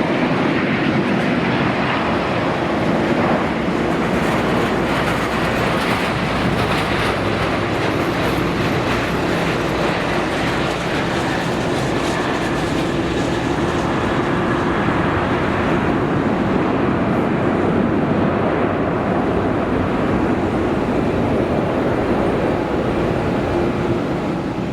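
Jet airliner engines running: a loud, steady rushing noise with a faint low hum in it, holding level throughout.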